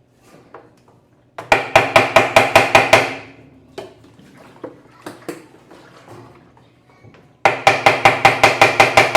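Hammer blows on the metal wash basket of an Electrolux LTE12 washing machine, struck to free a basket rusted fast to its shaft. Two quick runs of ringing metallic strikes, about six a second, the second starting near the end.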